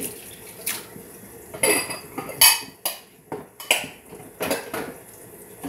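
A utensil clinking and scraping against a skillet as fried rice is scooped over to one side of the pan: about a dozen sharp, irregular clinks with a short ring.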